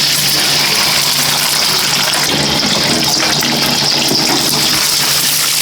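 Water running hard from a kitchen tap in a steady rush, turned on and off suddenly.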